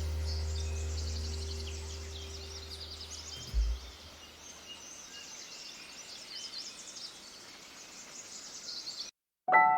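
Many small songbirds chirping and singing in quick high notes, with the low notes of fading music underneath for the first few seconds and a single low thump about three and a half seconds in. The birdsong cuts off suddenly near the end, and piano music begins.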